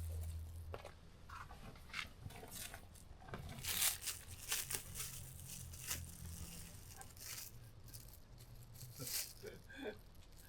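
Irregular crinkling and tearing rustles in short bursts, the loudest about four seconds in and again near the end, with faint voices under them.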